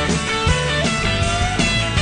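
Rock song with guitar over a steady beat.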